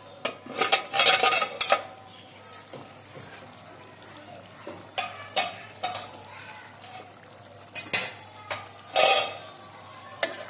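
Metal pot lid knocking and clattering against the pot in the first couple of seconds, then chicken curry sizzling and bubbling in its own juices. A metal spoon clinks and scrapes in the pan several times, loudest about nine seconds in.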